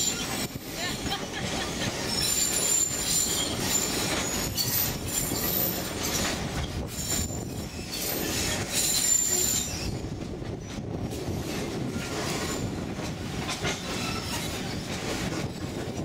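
Narrow-gauge train cars running on the track, heard from an open-sided carriage: a steady rumble and clatter of wheels on rail. Thin, high wheel squeal comes and goes through about the first ten seconds as the train rounds a curve, then fades.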